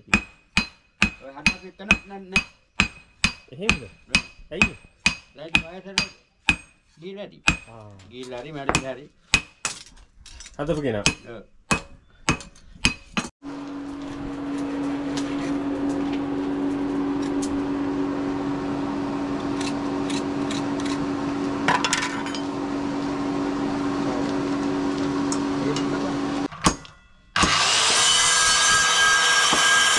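Sledgehammer and hand hammer forging hot steel on an anvil block, about two strikes a second with a ringing note, for the first dozen seconds. A steady motor hum follows, and near the end an electric Stanley jigsaw starts cutting.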